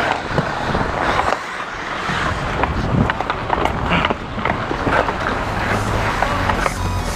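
Hockey skates striding and scraping, with sharp clacks of sticks and puck, picked up close on a player-worn camera. Music comes in near the end.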